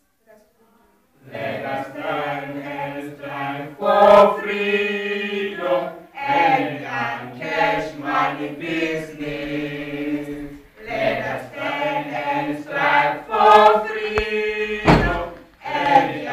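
A group of teenage voices singing together in unison, in several phrases with short breaks, starting about a second in. A thump near the end.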